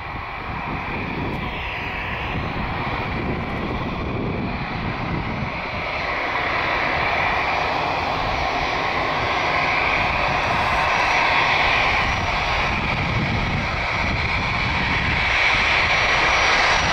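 Airbus A319 airliner's twin jet engines at taxi power, a steady whine and rush that grows gradually louder as the aircraft approaches.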